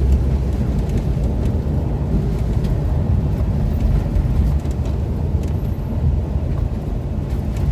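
A car driving in the rain, heard from inside the cabin: a steady low rumble of engine and tyres on the road, with a few faint taps.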